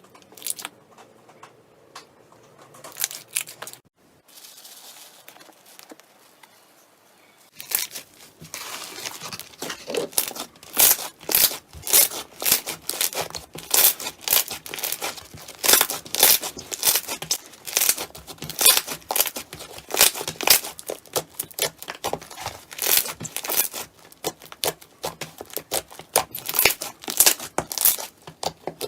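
Slime being squeezed and worked by hand, giving sticky crackling and popping: a few scattered pops at first, then a dense run of crackles from about eight seconds in.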